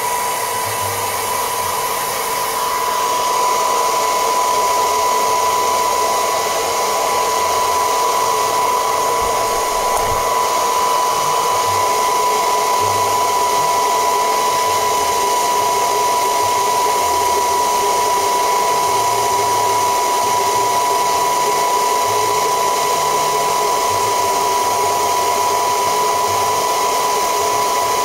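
Small handheld hair dryer running steadily: a constant high fan whine over the rush of air, blowing heat onto the phone's back panel to soften its adhesive.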